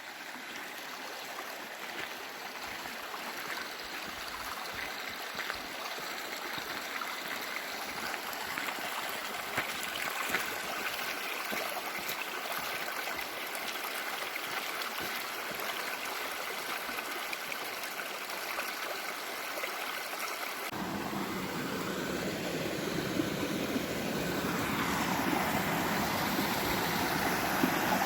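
Mountain stream rushing over rocks, a steady hiss of water that slowly grows louder. About two-thirds of the way in, a deeper low rumble suddenly joins it.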